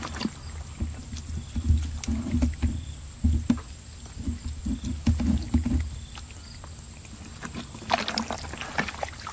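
Muddy shallow water sloshing and squelching as it is stirred by hand, in a run of low, irregular thuds over the first six seconds that then grows quieter, with a few sharp clicks.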